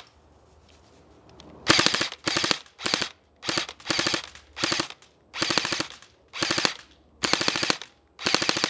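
JG MP5 SD5 airsoft electric gun (AEG) firing short full-auto bursts, its gearbox cycling rapidly. There are about ten bursts of under a second each, starting a couple of seconds in.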